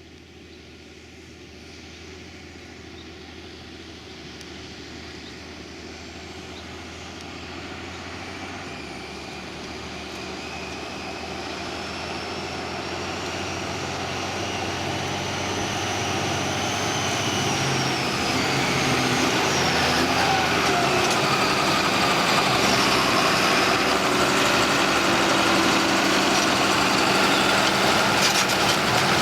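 John Deere 6930 tractor's six-cylinder diesel engine working, growing steadily louder for about twenty seconds as it draws closer, then holding level, with a high whine over the engine note.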